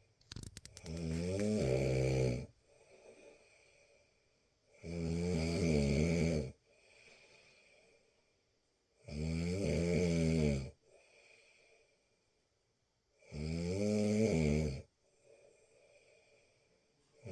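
Deep, regular snoring: four long, loud snores about one every four seconds, each lasting under two seconds, with quieter breathing between them. A short rattle of clicks leads into the first snore.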